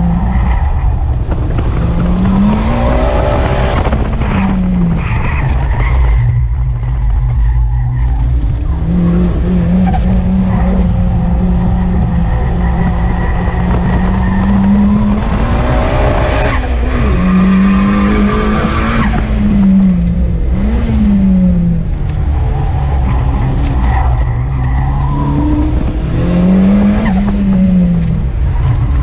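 Turbocharged Toyota AE86 heard from inside the cabin, its engine revving up and falling back again and again as it is driven hard around a tight circuit. The tyres squeal in places through the corners.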